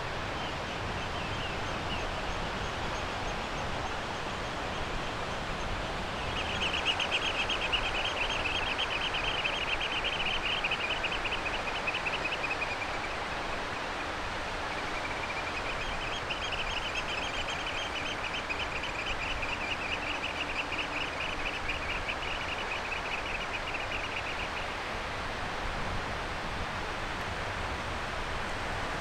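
Steady outdoor background rush, with a bird's rapid, high-pitched trill heard twice: once from about six seconds in for some six seconds, and again from about sixteen seconds in for some eight seconds.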